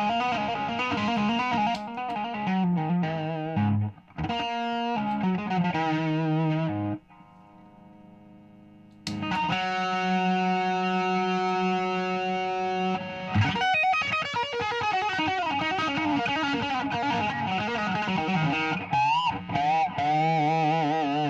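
Electric guitar with P90 pickups played through a compressor pedal with some drive into a solid-state amp: single notes and chords, some bent or shaken in pitch. A short pause about seven seconds in is followed by a chord held for several seconds that rings on with long sustain.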